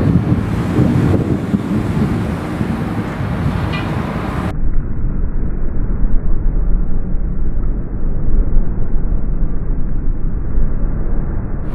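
Thunderstorm wind buffeting the microphone with a deep low rumble that swells and falls. About four and a half seconds in the higher sound cuts off abruptly, leaving only the low rumble.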